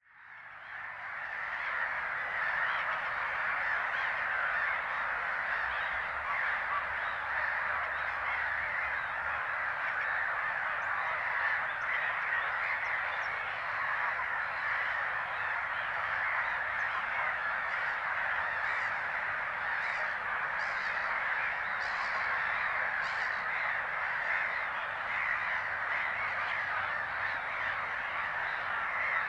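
Gull breeding colony calling all at once in a dense, unbroken chorus, including the display calls of Mediterranean gulls. It fades in over the first couple of seconds.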